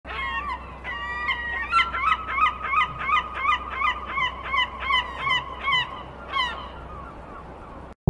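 Seagull calling: a few drawn-out wailing notes, then a rapid series of short, falling yelps about two a second that fades out near the end.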